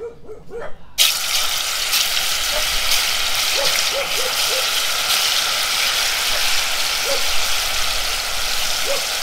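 Hot oil in a cast-iron wok sizzling as slices of ripe banana are tipped into it, for deep-frying. The sizzle starts suddenly about a second in and then holds steady and loud as more slices slide in.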